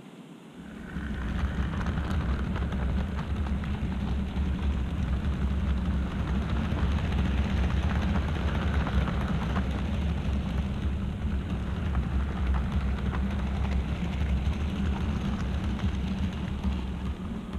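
OO gauge model train running along the track: a steady rumble of wheels and motor that starts suddenly about a second in and fades near the end.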